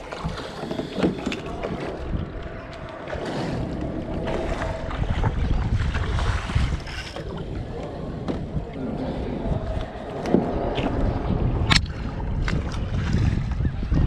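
Water swirling and lapping against a kayak's hull in a running current, with wind buffeting the microphone. A sharp knock sounds near the end.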